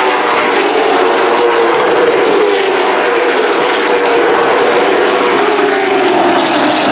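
A pack of late model stock cars' V8 engines running at racing speed, several engines heard at once in a steady, loud drone whose pitch sags slightly toward the end.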